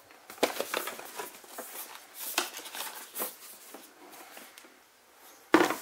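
Cardboard packaging being handled: a run of light irregular taps, scrapes and rustles as empty white cardboard boxes are moved about, with one louder knock near the end.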